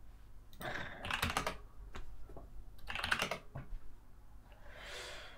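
Computer keyboard typing: two short bursts of keystrokes, the second about two seconds after the first.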